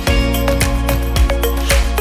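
Background music with a steady beat of percussive strikes over sustained notes.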